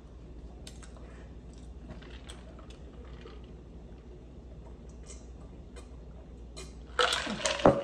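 Quiet eating noises: faint scattered clicks and handling sounds from fingers picking at fried chicken. Near the end comes a louder clatter and rustle with a sharp knock, as a plastic tumbler is set down on the foil-covered table.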